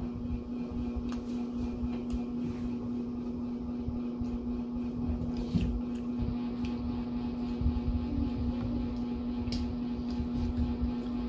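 A steady electrical appliance hum at one fixed pitch, with a few soft clicks of chewing scattered over it.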